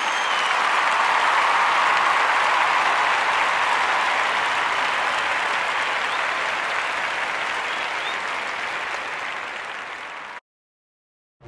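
Crowd applauding: a dense, even clapping that swells over the first couple of seconds, slowly dies away, and is cut off abruptly near the end.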